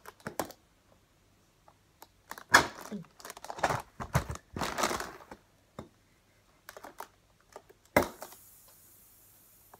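Inflated air-column packaging being stabbed with a knife and handled: crinkling and rustling plastic, scattered clicks, then a sharp pop about eight seconds in followed by a faint, steady hiss of air escaping from the punctured column.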